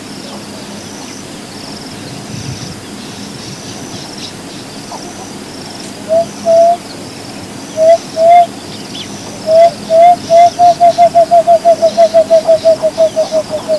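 Emerald-spotted dove singing, starting about six seconds in: low hooting notes, first in spaced pairs, then a fast run that speeds up, drops slightly in pitch and fades away.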